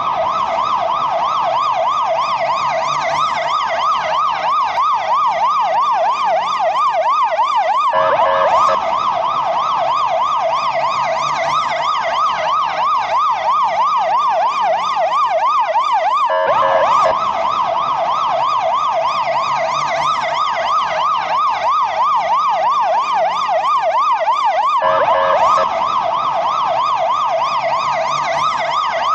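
Portuguese ambulance siren sounding a rapid up-and-down yelp. About every eight seconds it breaks briefly into a short stepped tone, then the yelp resumes.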